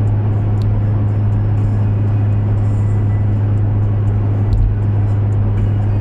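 Steady road and engine noise inside a car cruising at highway speed, about 120 km/h, with a constant low drone.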